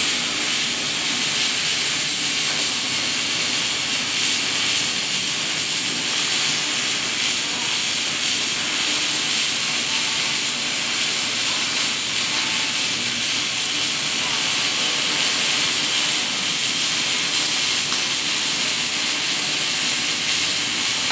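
Steady, even hiss, strongest in the high range, unchanging throughout.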